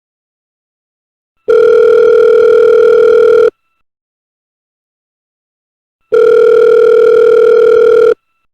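Telephone ringing with an electronic tone rather than a bell: two steady, loud rings of one mid-pitched tone, each about two seconds long, with a pause of about two and a half seconds between them.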